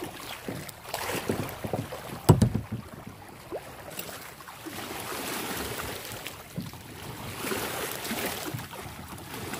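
Lake water splashing and lapping around a plastic kayak, with wind on the microphone. There is a single sharp knock about two seconds in.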